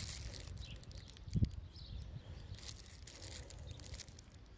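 Faint handling noise: light rustles and clicks from a small electronic tachometer, its cable and bubble-wrap packaging being turned over in the hands, with one brief low thump about a second and a half in.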